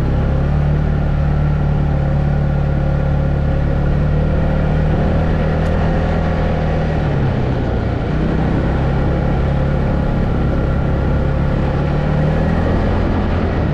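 ATV engine running steadily while riding, with its pitch dipping briefly about seven seconds in before picking back up.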